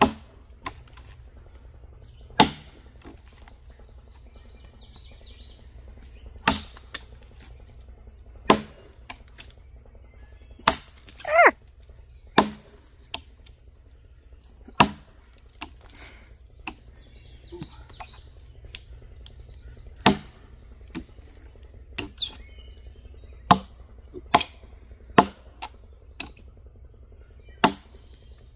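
A vintage Craftsman single-bit axe chopping a notch into a felled log. About a dozen sharp blows land one to four seconds apart, each the steel head biting into the wood.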